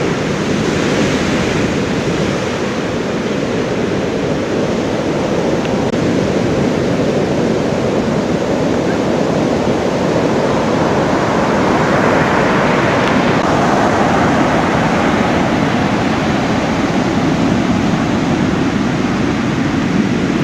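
Heavy surf from a double-to-triple-overhead swell breaking and churning into whitewater: a steady, loud rush of water that grows a little louder about halfway through.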